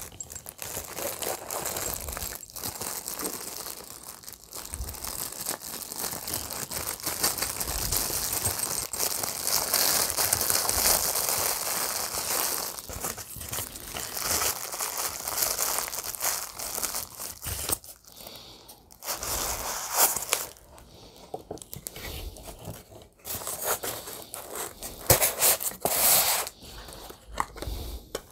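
Paper and plastic packaging crinkling and tearing as an item is unwrapped by hand: a dense run of small crackles, busiest in the first half, then stopping and starting with a few sharper bursts near the end.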